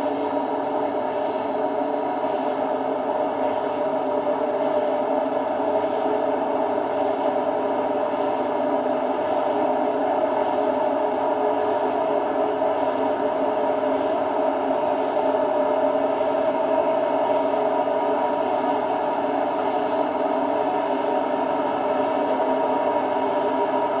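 Indesit IWD71251S washing machine drum spinning, with a steady rumble and a motor whine that rises slowly in pitch as the drum speeds up. The rumble is the drum bearings, which are starting to go.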